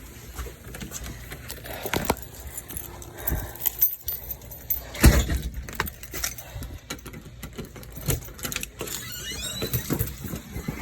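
Irregular handling noise of clicks, rattles and knocks, with one heavier thump about halfway through.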